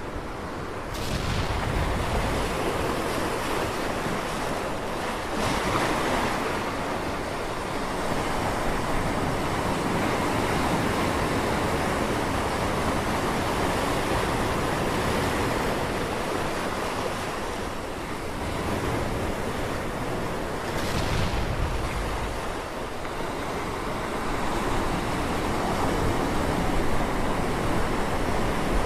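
Ocean surf breaking and washing over rocks: a continuous rush of water that swells and eases every few seconds, with a few sharper crashes.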